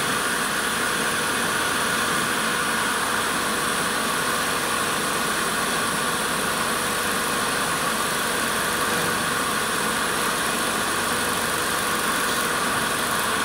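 Wood lathe running steadily, a constant whirring hum with no change in level, while the point of a lathe knife cuts into the spinning wooden spindle.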